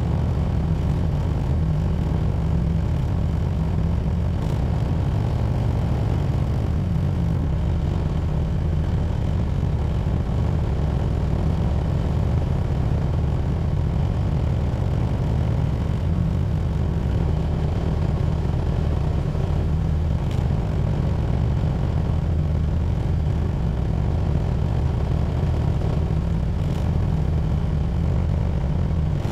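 Tractor engine running steadily with a low, even drone as the tractor plows snow, heard from a camera mounted on the tractor.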